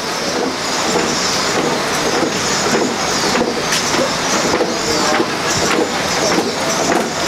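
Wooden deity palanquin clattering on its carrying poles as bearers carry it, a steady dense rattle of many small knocks.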